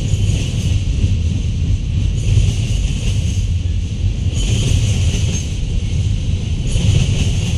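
Freight cars of a mixed-freight train rolling past at close range: a steady low rumble of wheels on rail, with a metallic hiss that swells about every two seconds as the wheelsets go by.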